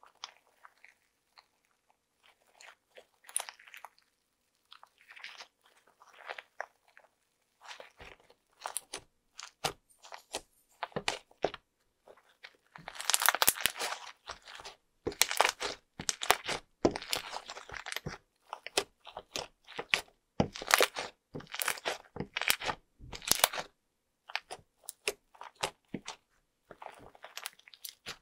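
Fluffy slime with small beads being squeezed, folded and stretched by hand, giving a run of sticky crackles and pops. Sparse and soft at first, it grows denser and louder from about eight seconds in.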